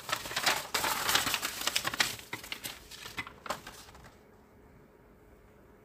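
Sheets of paper rustling and crinkling as they are handled and laid out for tracing, with quick crackly rustles that stop about four seconds in.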